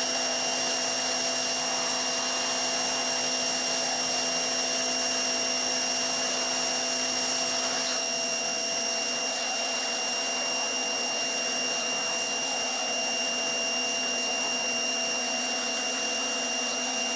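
PowerSmart PS22 1300 PSI electric pressure washer running with a steady whine, its fan spray hissing against vinyl siding; the tone shifts slightly about halfway through.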